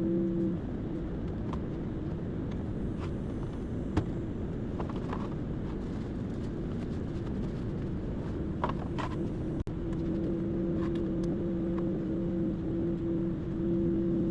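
Vacuum cleaner running with a steady hum and rushing air. Scattered sharp clicks and rattles, the loudest about four seconds in, come from debris being sucked up. The hum fades in the middle and comes back about ten seconds in.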